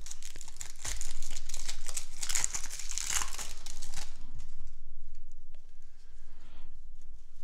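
A trading-card pack's wrapper being torn open and crinkled by hand, loudest over the first four seconds, then quieter rustling and small clicks.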